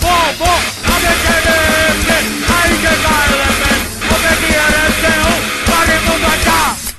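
Punk rock band playing, with distorted guitars, drums and shouted vocals; the music cuts off abruptly near the end.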